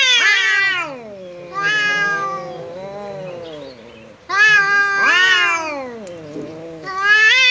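Two domestic cats yowling at each other in a face-to-face territorial standoff. It is a series of long, wavering yowls that rise and fall in pitch, about four of them one after another.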